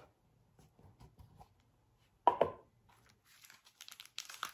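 Small cardboard jewellery box being handled and opened: one sharp knock about two seconds in, then a run of light taps and scrapes of cardboard near the end.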